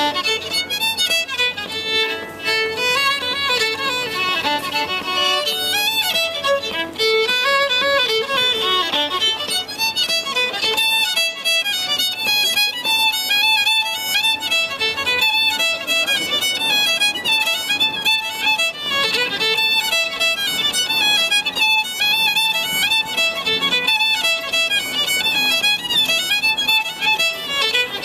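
Scottish fiddle music: a solo fiddle playing a tune with quick, continuous runs of notes.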